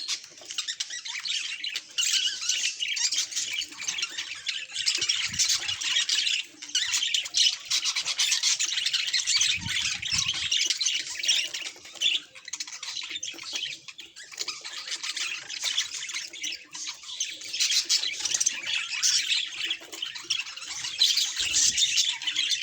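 Budgerigar chatter: a continuous run of fast chirps, warbles and scratchy squawks.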